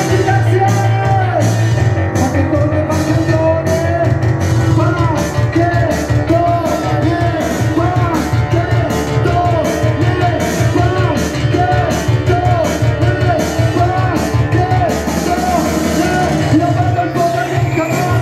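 Live punk rock band playing: the singer's voice through the PA over a pulsing bass line and a steady, driving beat.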